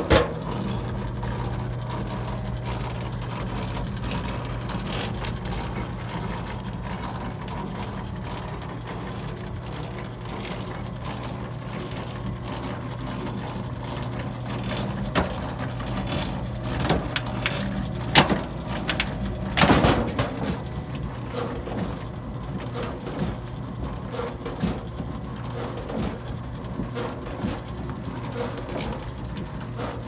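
1915 Altorfer Brothers copper rocker-tub washing machine running: a steady motor hum under the drive rocking the copper tub back and forth, with light clicks and a few sharp clanks from the mechanism about two-thirds of the way through.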